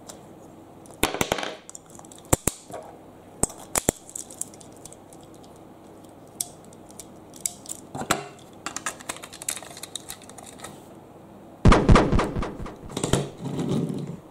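Hard plastic toy trains and playset pieces clicking and clacking as they are handled: single sharp clicks, a run of small ticks, then a loud rattling clatter about twelve seconds in and another shorter one just after.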